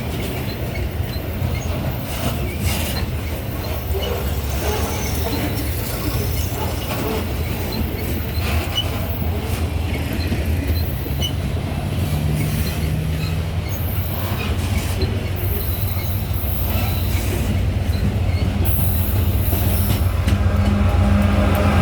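Loaded grain freight train rolling past, its wagons' steel wheels giving a continuous low rumble on the rails with faint intermittent wheel squeal. A steady low hum comes in and the sound grows louder near the end.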